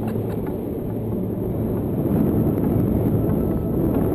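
Wind rushing and buffeting over the camera microphone during a tandem paraglider flight, a steady low rumble.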